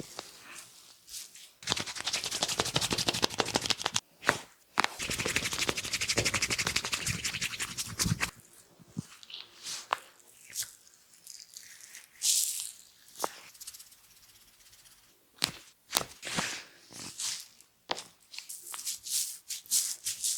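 Fingers scrubbing a lathered scalp fast and hard during a shampoo head massage: two long stretches of dense scratchy rubbing, then scattered shorter rubs and a few sharp clicks.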